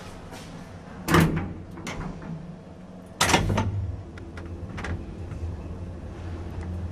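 Two loud bangs about two seconds apart, with a few lighter knocks between and after them. A steady low rumble rises after the second bang.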